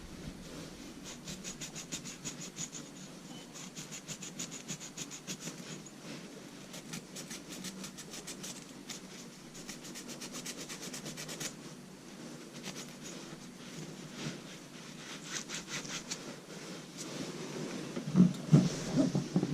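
Flame sensor rod of a Goodman gas furnace being scrubbed clean by hand. Quick back-and-forth rubbing strokes come in runs with short pauses, and a few knocks sound near the end. The cleaning takes oxide off the rod so that it keeps sensing the flame.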